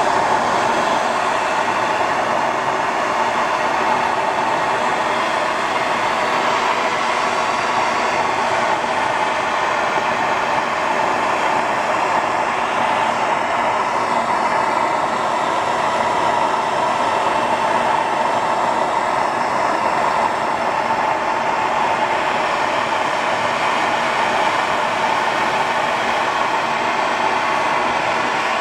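MAP gas torch flame burning with a steady rushing hiss as it heats the rear differential housing to burn off leftover gear oil before welding.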